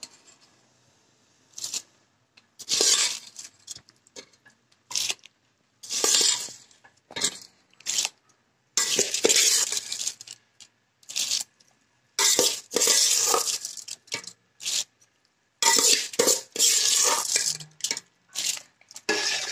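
Pots, dishes and utensils being handled, clinking and scraping in a string of short bursts separated by brief pauses.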